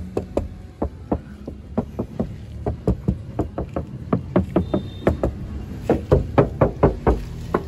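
Knuckles rapping quickly on the sheet-metal door panel of a Suzuki Alto lined with sound-damping sheets, about four or five knocks a second, as a knock test of the damping. A low steady hum runs underneath, and the knocks grow louder over the last couple of seconds.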